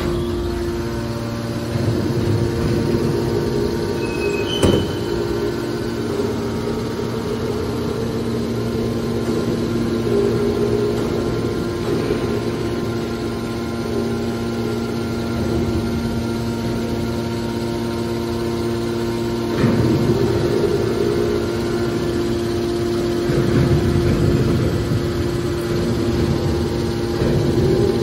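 Electric motor and hydraulic pump of a horizontal scrap-metal baling press running with a steady hum. A single sharp knock comes about four and a half seconds in, and the sound swells louder for a few moments several times.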